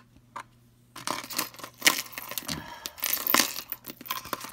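Pieces of metal costume jewelry clinking and rattling against each other as they are handled and sorted: a couple of single clicks, then a busy run of clinks starting about a second in.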